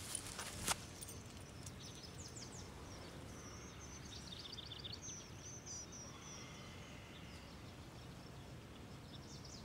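Small birds chirping and twittering in quick repeated runs over a steady low outdoor hiss, with a couple of sharp clicks in the first second.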